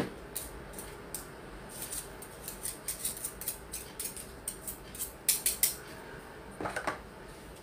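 Wire whisk beating egg into melted margarine in a plastic mixing bowl, its wires clicking and tapping against the bowl in quick, irregular strokes, with a few louder taps about five to seven seconds in.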